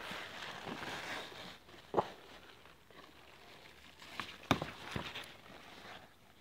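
Rustling of leaves and vines as a hand moves through the gourd plants, with a few sharp clicks or snaps: one about two seconds in and a cluster around four to five seconds in.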